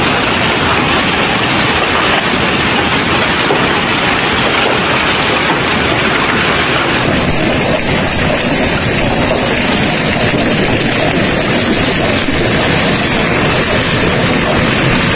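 Hailstorm: hail and rain pelting down onto paving, cars and ground in a dense, steady hiss. About halfway through, the sound turns duller.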